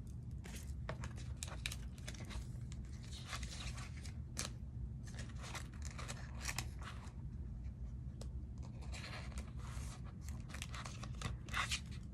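A Pokémon trading card being slid into a plastic card sleeve by hand: scattered short rustles and light taps of the plastic and card, a little louder near the end.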